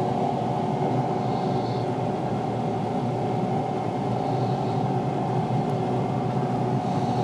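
Weber pellet grill's fan running with the lid open: a steady hum with a few fixed tones that does not change.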